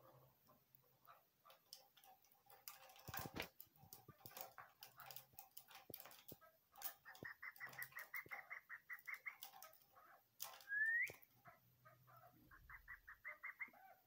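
Female chukar partridge calling from a cage: soft clucks and clicks, then a quick run of sharp chuck notes, about five a second, from about seven seconds in. A loud short rising call comes about eleven seconds in, and another quick run of chuck notes follows near the end. A brief scratchy rustle comes about three seconds in.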